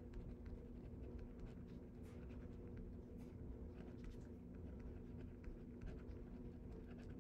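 Pen scratching on paper in quick short strokes as a line of words is handwritten, faint, over a steady low hum.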